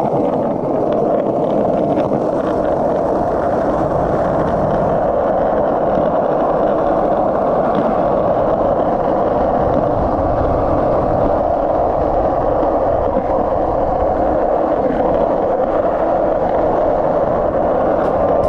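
Skateboard wheels rolling fast down an asphalt road, a steady rolling noise.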